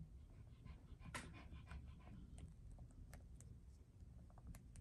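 Near silence: faint, muffled pops of a silicone pop-it phone case's bubbles pressed by fingertips. They are a little bit silent with the phone inside the case. A soft rush of breath comes about a second in.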